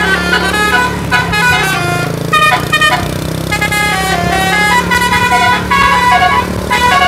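Bus musical air horn (telolet) playing a quick tune of stepping notes, each note a stack of bright horn tones, with the bus engine running steadily underneath.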